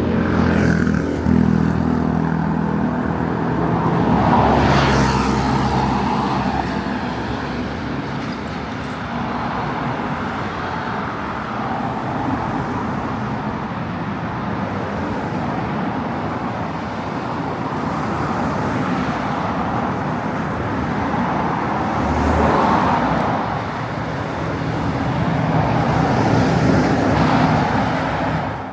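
Road traffic: a vehicle's engine running close by at first, then a steady wash of tyre and engine noise as several cars pass one after another.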